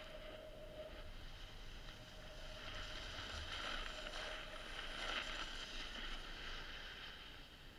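Snowboard sliding over packed snow, the board hissing and scraping, growing louder for a few seconds in the middle before easing off again.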